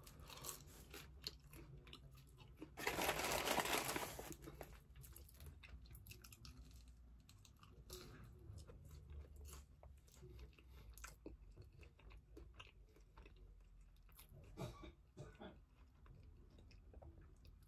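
Close-up mouth sounds of a person chewing fries: soft wet clicks and small crunches. About three seconds in, a louder hiss-like noise lasts about a second and a half.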